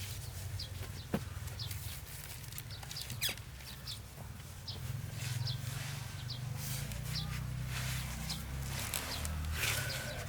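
Short, high, rising peeps from birds, likely chickens or chicks, repeated about once or twice a second over a low steady rumble.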